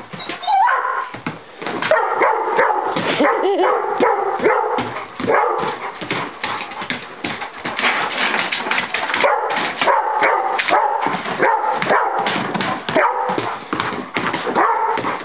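Pit bull giving a continuous run of short barks, yips and whines as it chases a flashlight spot, starting suddenly just after the opening.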